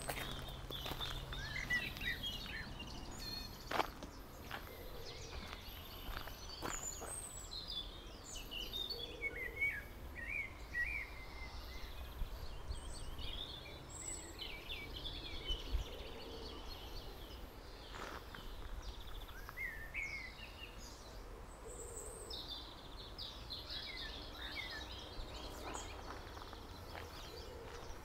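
Several songbirds singing in short chirps and trills, with occasional footsteps on a gravel path and a steady low rumble beneath.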